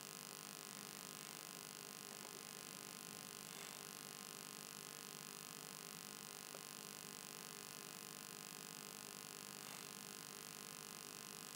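Near silence: a faint, steady electrical hum of background noise.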